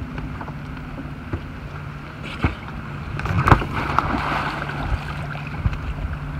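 A spearfisher in fins rolls off an inflatable dinghy into the sea, making one loud splash about three and a half seconds in. Small knocks and water against the boat come before it, over a low steady hum.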